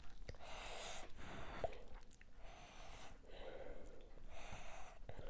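A person breathing heavily through the nose into a close microphone while eating, three long breaths at about a breath and a half apart, with a faint click in between.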